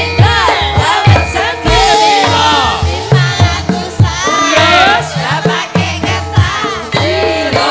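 Javanese gamelan music with a sinden singing a melismatic vocal line over it and regular kendang drum strokes.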